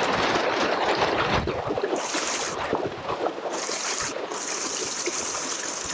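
Water rushing and splashing along the hull of a kayak under way at speed, with wind buffeting the microphone in the first second and a half. A higher hiss of spray comes and goes through the second half.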